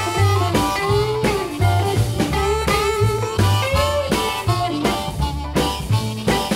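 Blues band playing an instrumental break: a lead instrument plays a melody line that bends in pitch, over a steady bass and drum beat.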